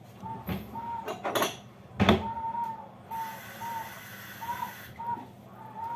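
Kitchen items handled on a counter: a few clicks and one louder knock about two seconds in. Behind them a faint, high, steady tone comes and goes in short dashes, with a soft hiss near the middle.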